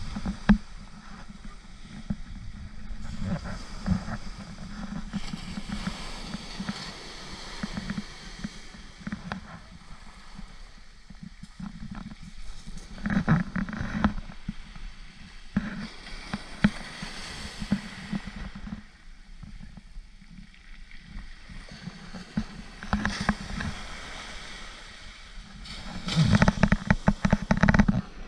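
Wind rumbling on the microphone over small waves washing onto a shingle beach, with louder gusts about halfway through and again near the end.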